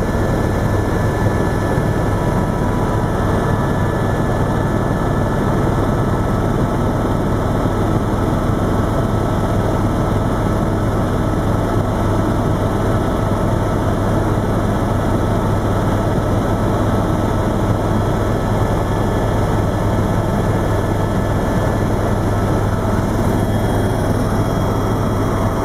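Helicopter engine and rotor drone in flight, heard from inside the cabin: a loud, steady noise with a strong low hum.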